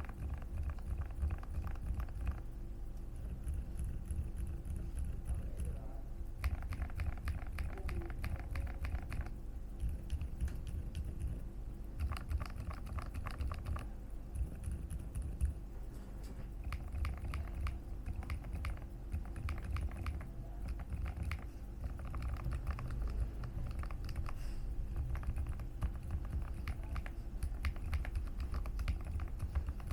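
Typing on a ZOUYA GMK67 mechanical keyboard fitted with silent switches: dull, muted keystrokes in quick runs of a few seconds with short pauses between them.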